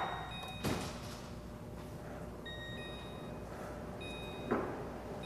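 Whirlpool convection microwave's keypad beeping as its buttons are pressed to set a 25-minute timer: three short steady beeps at two different pitches, a second or two apart. Two brief soft thuds, about three-quarters of a second in and near the end, are the loudest sounds.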